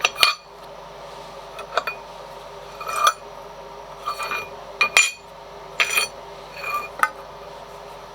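Steel parts and tools being handled, with about eight sharp metallic clinks and clanks, each ringing briefly, over a steady background hum.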